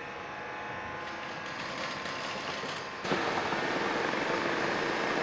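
A steady machine hum from the pressure-washer supply; about three seconds in, the rotating underbody washer's nozzles start spraying and a loud, steady hiss of high-pressure water jets takes over.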